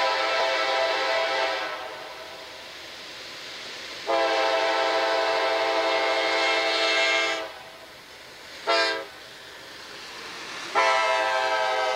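Horn of a CSX GE Dash 8-40CW diesel locomotive sounding the grade-crossing signal: a long blast that ends about two seconds in, a second long blast, a short one, then a long one starting near the end. The approaching train rumbles more quietly between blasts.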